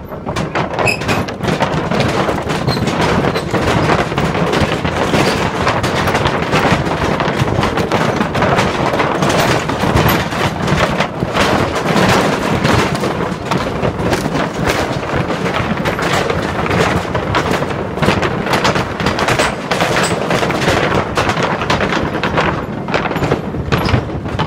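Wooden deck planks of a suspension bridge clattering under a car's tyres as it drives across, a fast, irregular run of knocks and clicks that sounds like typing on a keyboard.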